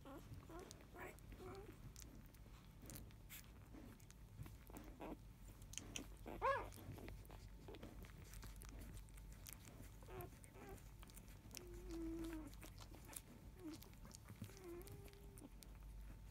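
Faint small grunts and soft squeaks from sleeping five-day-old Labrador retriever puppies, with one louder, higher squeak about six and a half seconds in.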